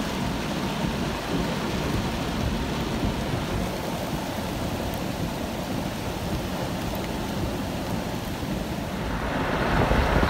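Heavy rain and wind during a thunderstorm: a steady hiss over a low rumble. About nine seconds in it grows louder.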